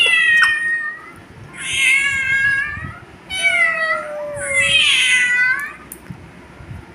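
Four drawn-out meows, each about a second long with gaps between. During the third, a second, lower meow with a falling pitch sounds along with it.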